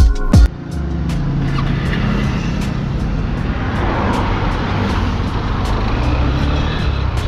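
A music track cuts off about half a second in. Then a Honda X-Blade 160's single-cylinder engine runs steadily at highway cruising speed under heavy wind and road noise.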